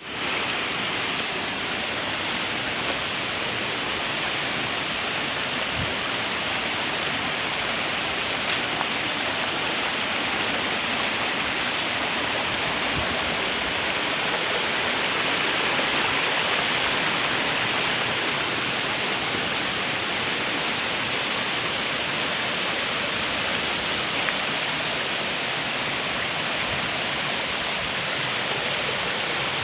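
Waterfall pouring, a continuous even rush of falling water that holds steady throughout.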